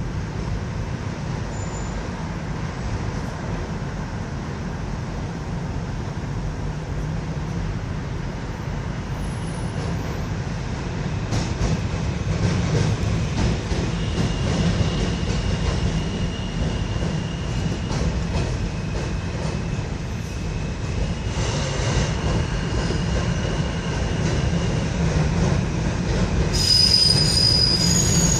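New York City subway train running over the Williamsburg Bridge: a steady low rumble with some clacking of the wheels on the rails. Thin wheel squeals come in about halfway through, and a louder, higher-pitched squeal rises near the end.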